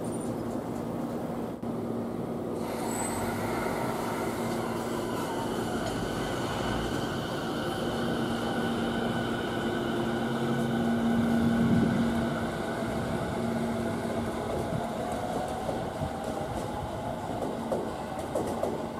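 Electric train running on the station tracks: a steady rumble of wheels on rail with a low hum, getting louder until about two-thirds of the way through and then easing off, with a faint rising whine near the end.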